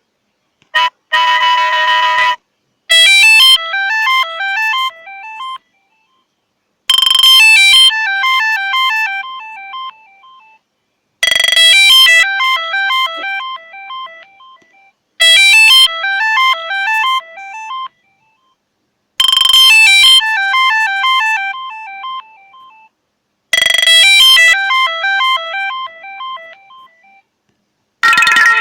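Samsung Galaxy J7 Pro ringtone: a short melody of quick stepping notes, each phrase starting loud and fading away, played six times over, about every four seconds. Before it, two short held tones sound about a second in, and a different ringtone starts near the end.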